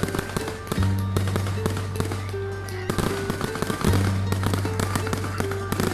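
Aerial firework shells bursting and crackling in many rapid, irregular pops, over music with sustained bass notes.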